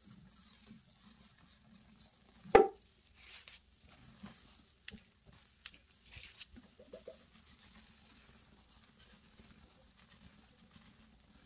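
Comet cleanser powder poured and shaken from its canister onto a wet, foamy paste, falling in soft sprinkles with a few light taps. One sharp knock about two and a half seconds in is the loudest sound.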